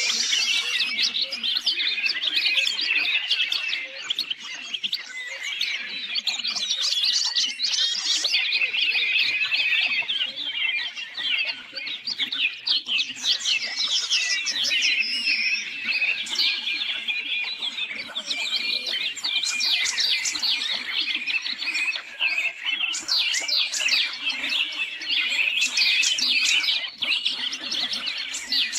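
Songbirds singing: a dense, continuous stream of fast, high chirps and trills with no pause.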